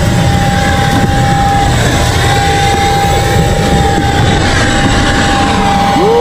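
Aircraft engine noise, steady and loud: a low rumble under a constant whine.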